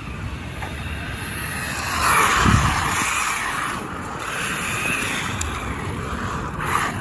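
HAIBOXING 2997a RC car driving on pavement: its electric motor and tyres make a rushing noise that swells as it passes close about two seconds in, then eases off, with a low rumble underneath.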